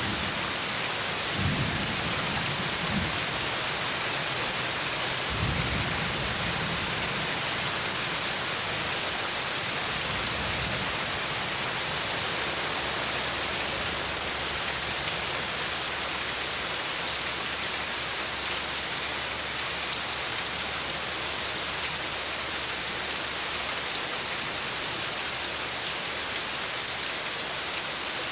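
Steady rain with a hiss, and low rumbles of thunder a few times in the first ten seconds or so.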